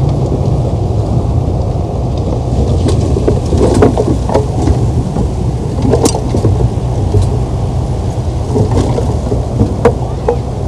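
Heavy diesel earthmoving machinery running with a loud, steady low rumble, with a few sharp metallic clanks scattered through it.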